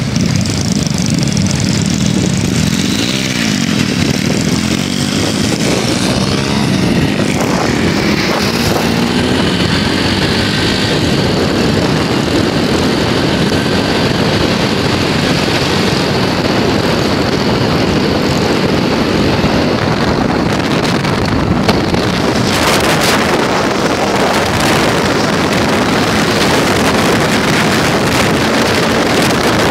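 Small engine running steadily at an even speed, loud and close.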